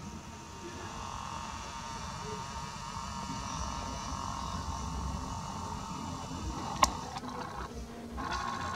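Nikon P900 camera's zoom lens motor whirring steadily as the lens zooms in, with one sharp click about two-thirds of the way through. The whir stops briefly and starts again near the end.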